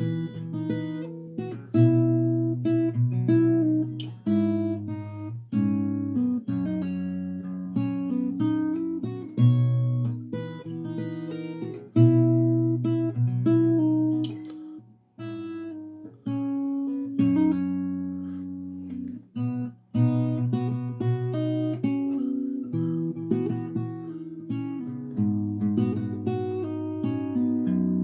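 Fingerstyle acoustic guitar playing a chord-melody arrangement of a pop song, capoed at the fourth fret, plucked notes and chords with short pauses between phrases.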